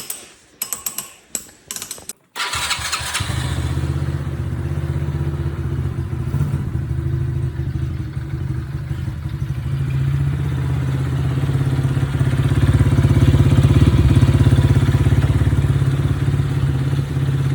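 A Coolster 125cc ATV's small single-cylinder four-stroke engine running steadily from about two seconds in, a little louder for a few seconds near the middle. A few light clicks come before it.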